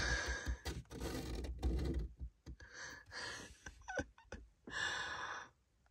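A fingertip scratching at frost on the inside of a car's rear window: short rasping scrapes mixed with small clicks, with a longer scrape near the end.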